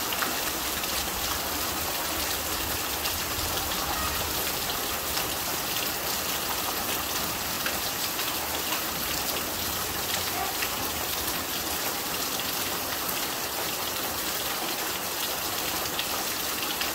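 Heavy monsoon rain pouring steadily: a dense, even hiss of drops, pattering on corrugated tin and splashing into standing water.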